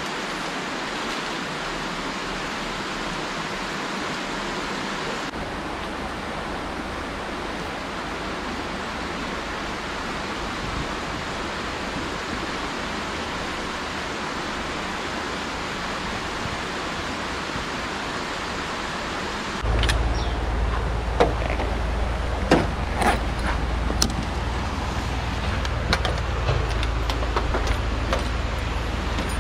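Steady rushing of a rocky stream flowing close by. About two-thirds of the way through, it gives way to a low steady rumble with scattered clicks and knocks as a rooftop-tent awning is handled and packed away on a car.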